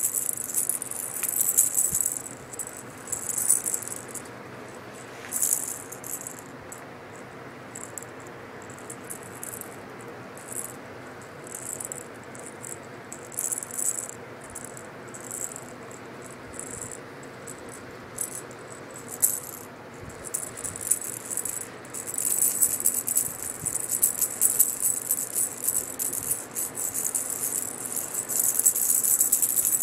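A cat toy rattling in short, irregular bursts as it is shaken and batted about. The rattling is sparse for a while, then nearly continuous over the last several seconds.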